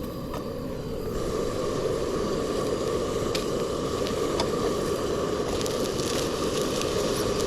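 Mushrooms frying and sizzling in a pan on a Trangia spirit stove, getting louder about a second in, with a few sharp clicks. The mushrooms are burning.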